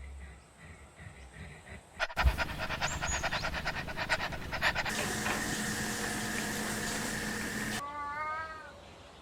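Domestic cat sounds. After a quiet start, a louder stretch of rapid ticking begins suddenly and turns into a steady hum. Near the end a single short, wavering meow is heard.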